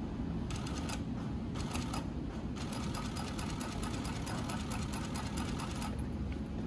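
New-Tech GC-9920D double-needle post bed industrial sewing machine stitching through a cap, with rapid even needle clicking over a steady low hum. The stitching comes in two short runs, then a longer one that stops shortly before the end.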